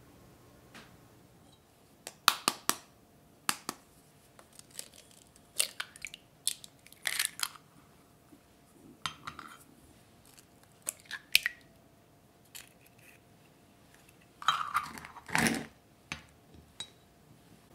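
Whole eggs cracked into a glass mixing bowl: a string of sharp taps and clinks against the glass, with crunches of shell being broken apart. The loudest cracking comes about fifteen seconds in.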